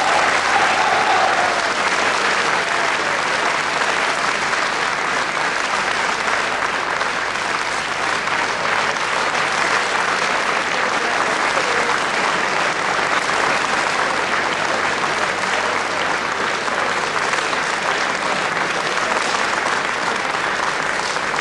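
A large audience applauding steadily, the clapping unbroken throughout.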